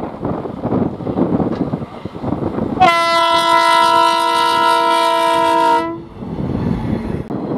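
Horn of an Indian Railways OHE van sounding one long blast of about three seconds, a chord of several steady tones, starting about three seconds in. Before and after it there is a rumbling noise with wind on the microphone.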